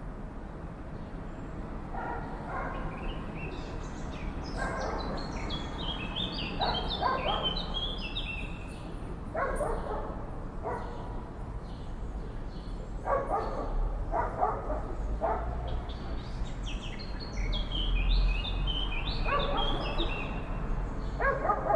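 Crows cawing in short harsh bursts every few seconds, over the high twittering of swallows.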